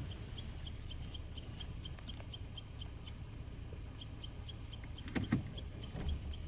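Insect chirping in a steady rhythm of about four short high chirps a second, over a low wind rumble, with a couple of sharp knocks about five seconds in.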